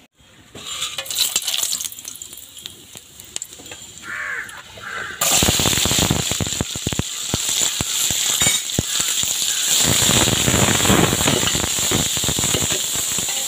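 Hot oil sizzling in an aluminium pot, quietly with a few clinks at first as whole spices go in, then, about five seconds in, suddenly loud and dense as sliced small onions and green chillies fry. A metal ladle clinks and scrapes against the pot as they are stirred.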